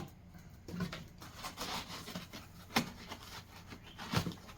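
Hands rustling and handling packaging while taking an accessory out of the box, with two sharp knocks, one a little under three seconds in and one about four seconds in.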